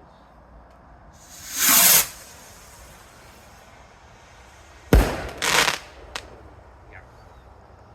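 Fireworks going off: a hissing rush that builds for under a second and cuts off sharply, then a few seconds later a sharp bang followed straight away by a short burst of hiss and a small crack.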